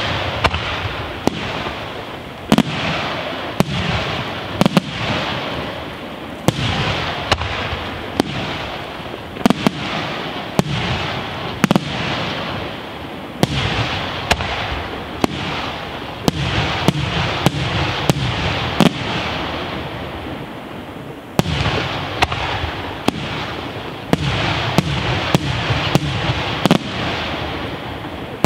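Aerial firework shells bursting in quick succession in an evening display: sharp bangs about once or twice a second over a continuous crackling din. There is a short lull about two-thirds of the way in before a fresh run of bursts.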